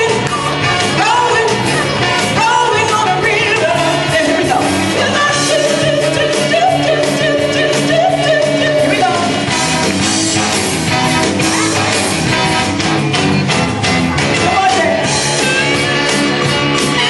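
Live band playing up-tempo rock and roll, with a singer's voice gliding over a steady, driving drum beat.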